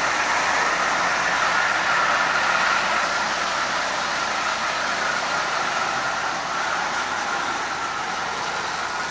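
Marx 999 die-cast toy steam locomotive running steadily on tinplate track, with an even motor whine and the rumble of wheels on the rails. The rebuilt motor runs smoothly.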